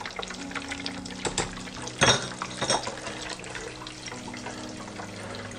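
Breaded Brie cheese deep-frying in a pot of hot oil: steady sizzling with many small crackles and a few louder pops about two seconds in. The crackling is the kind that comes when moisture reaches the oil, as the melting cheese starts to push out through the breaded crust.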